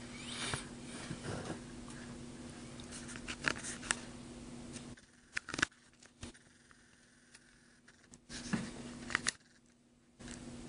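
Faint scattered metallic clicks and light scratching of a hook pick and tension wrench working the pins of a Master Lock 575 padlock, over a steady low hum.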